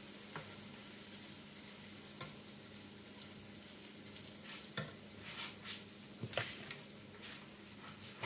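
Tofu frying quietly in a frying pan, with a utensil stirring and turning the pieces: a few sharp clicks and short scrapes against the pan, more of them in the second half.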